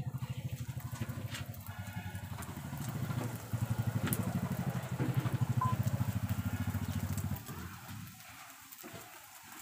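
A small engine idling with a steady low throbbing, about eight beats a second, that cuts off abruptly about seven and a half seconds in. Under it, a faint crackle of bread frying in hot oil.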